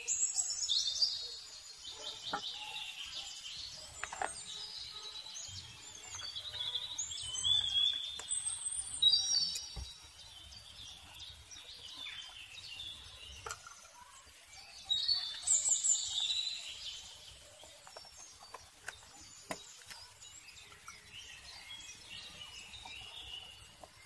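Several birds chirping and singing, in bursts of quick rising and falling calls. Scattered light clicks and taps from a tin can and cardboard being handled.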